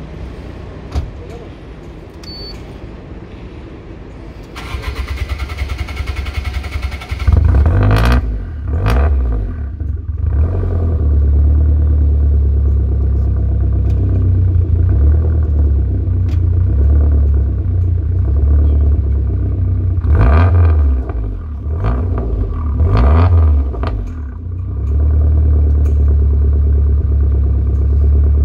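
Lancia Delta HF Integrale's turbocharged four-cylinder engine being started: the starter cranks for about three seconds, the engine catches with two quick blips of the throttle, then settles into a steady idle. There are two more short revs, about two-thirds of the way through.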